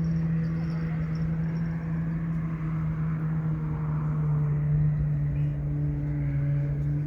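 A motor engine running with a steady low hum, its pitch sagging slightly about five seconds in.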